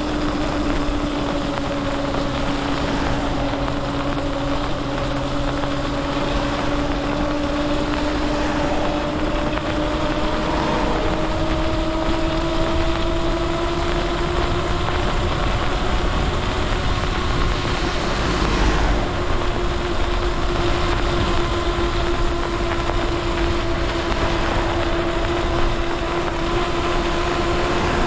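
Lyric Graffiti e-bike's electric motor whining steadily at speed, its pitch rising gently in the second half as the bike speeds up. Underneath is a steady hiss of tyres on wet road and wind.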